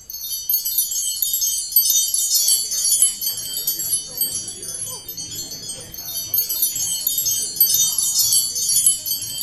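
Continuous high, metallic chiming and jingling of many small bells, with a faint murmur of voices beneath.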